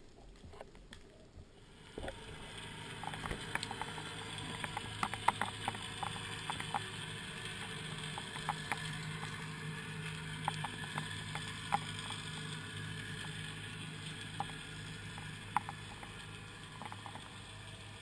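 Underwater ambience picked up by a camera below the surface: a steady low hum under a hiss, with scattered sharp clicks and crackles. It comes up suddenly about two seconds in.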